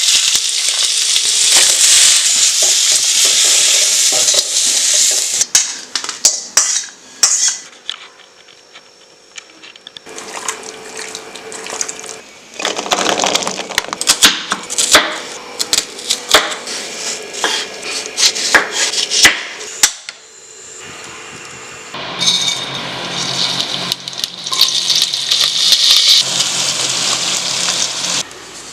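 Cooking sounds from a pan of chicken gravy: food sizzling in hot oil, then metal utensils clattering against the pot in quick knocks, and sizzling again near the end.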